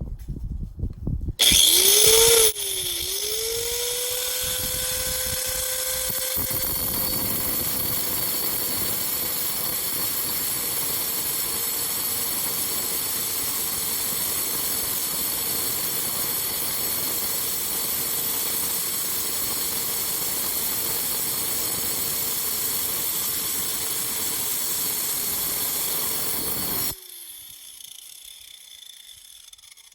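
Angle grinder starting up with a loud burst, then running steadily with a high whine as it cuts into a quartz geode. About 27 seconds in it is switched off and winds down.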